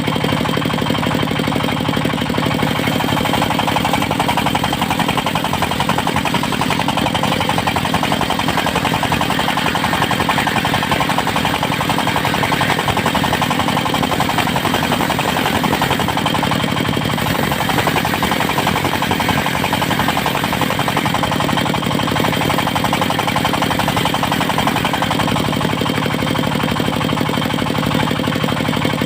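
Diesel engine of a portable circular sawmill running steadily with a fast, even knock.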